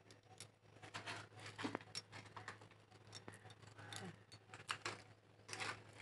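Steel spoon clinking and scraping against stainless steel plates and bowls while food is served: a faint, irregular run of light metallic clicks and scrapes.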